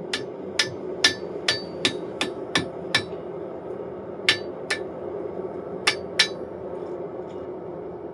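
Blacksmith's hammer striking metal on an anvil, each blow ringing. About eight quick blows come in the first three seconds, then two pairs of blows after short pauses, over a steady hum.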